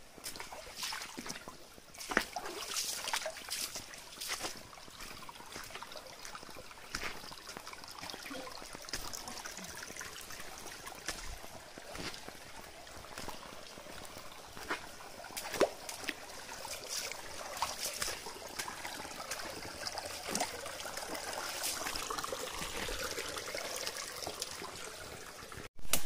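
Shallow rocky stream trickling over stones, with irregular footsteps and scuffs on wet rocks mixed in.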